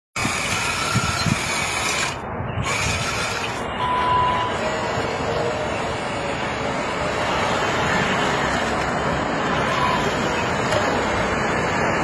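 Radio-controlled model excavator running steadily as it swings its boom, a constant noisy mechanical sound with no clear pitch.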